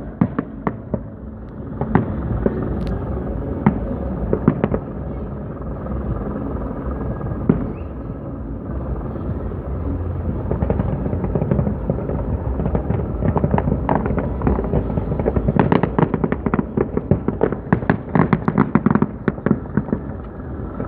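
Aerial fireworks going off: a continuous rumble of shell bursts with scattered sharp bangs, building about two-thirds of the way in into a dense, rapid barrage of bangs and crackle.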